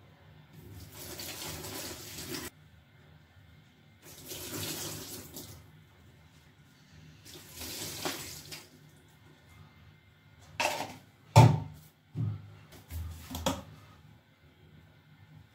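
Soapy water poured from plastic cups into a plastic tub of sponges, three separate pours of a couple of seconds each. After them come several sharp knocks and clicks, the loudest about halfway through, as cups are put down and a dish soap bottle is handled.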